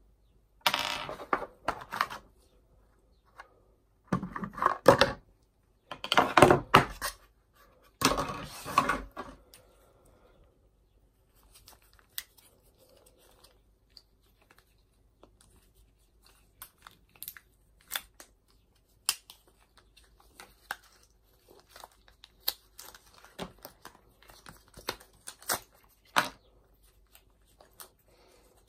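Plastic packaging crinkling and tearing in four loud bursts over the first ten seconds, followed by scattered light clicks and rustles of small accessories and a cable being handled on a desk.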